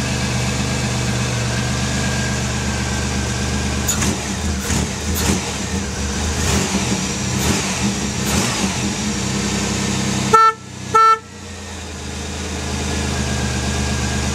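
Pontiac Firebird engine running, its pitch rising and falling unevenly for several seconds as it is revved. This is followed by two short car-horn honks a little past the middle.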